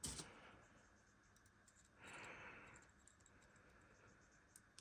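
Near silence, with a sharp click at the start and a few faint light clicks of small model locomotive parts being handled, and a short breathy sound about two seconds in.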